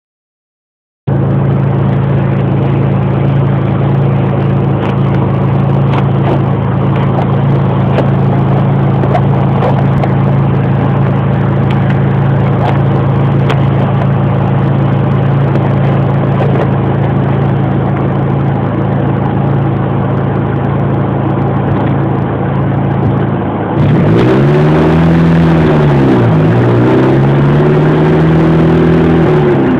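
Audi A4's engine running at a steady pitch, with wind noise on the microphone. About 24 seconds in it grows louder and its pitch falls and climbs again twice as the revs change.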